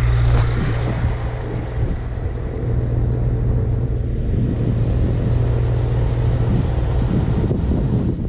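An engine running steadily at an even speed, a continuous low hum.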